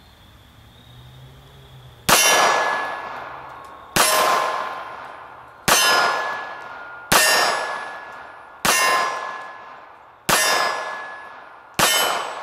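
Seven shots from a Micro Desert Eagle .380 ACP pocket pistol, about one and a half seconds apart, starting about two seconds in. Each is a sharp crack with a steel target ringing on the hit, the ring fading out until the next shot.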